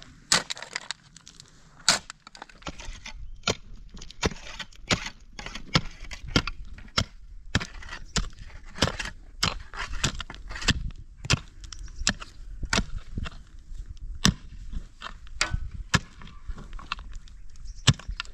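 Steel shovel blades digging and scraping into stony soil: irregular sharp strikes and crunching scrapes, about one or two a second.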